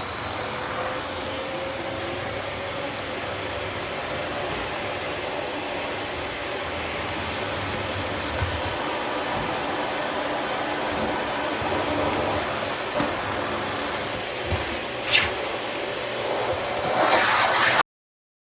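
Vacuum cleaner running steadily with a high motor whine. There is a sharp knock about fifteen seconds in, and the sound cuts off suddenly near the end.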